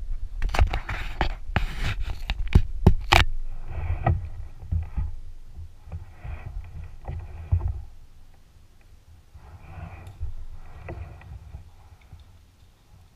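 Kayak paddling: a burst of sharp knocks in the first three seconds, then the paddle blades dipping and splashing in regular strokes about every second and a half over a low rumble that fades out about two-thirds of the way through.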